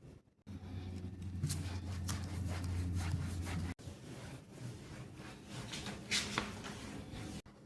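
Irregular rubbing and scraping, with a low steady hum under the first half that stops abruptly.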